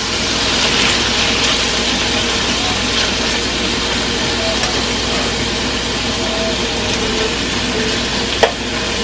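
Chopped boneless chicken thighs sizzling steadily as they sear in a hot pan, the sign that the pan was hot enough when the meat went in. One sharp tap of the metal tongs against the pan near the end.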